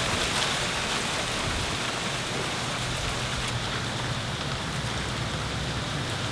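Wind rustling through palm and palmetto fronds: a steady, even hiss.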